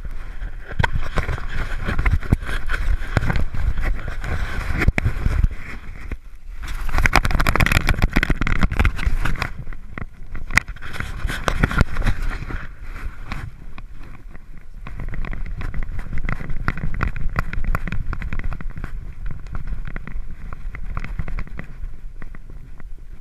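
Rubbing, bumping and rumbling of a GoPro strapped to a small dog's back, its fur brushing over the case and the camera jostling as the dog moves, with a brief lull about six seconds in.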